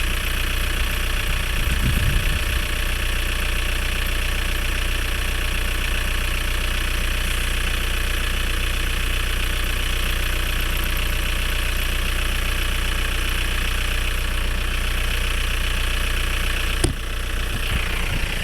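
Mk4 Volkswagen Bora's engine idling steadily after being started on a new battery following months of standing unused. There is a brief low thump about two seconds in and a single sharp click near the end.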